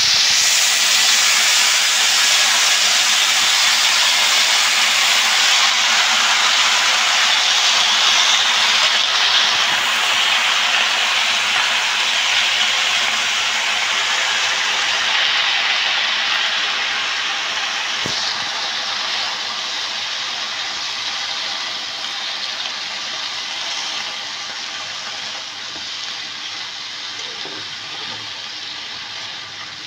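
Wet, freshly washed spinach hitting hot oil in a kadai with frying potatoes: a loud sizzling hiss that starts all at once and slowly dies down as the leaves wilt. One sharp tap of the spatula on the pan comes about halfway through.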